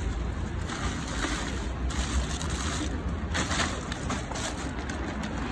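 Plastic bags crackling and rustling in a few short bursts as they are handled and packed, over a steady low rumble.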